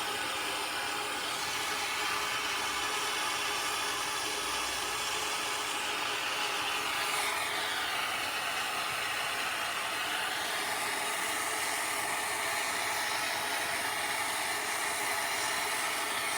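Gas torch flame hissing steadily as it heats copper nails to melt flux-coated silver solder onto them.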